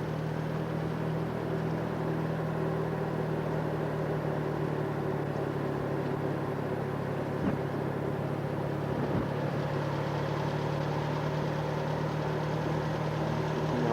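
A car engine running steadily with an even hum, with two light knocks about halfway through.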